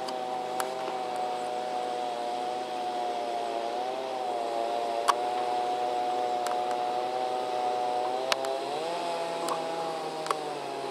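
Engine and propeller drone of a Rans S6 microlight flying overhead: a steady hum whose pitch rises slightly about four seconds in and again near the end, with a few faint clicks.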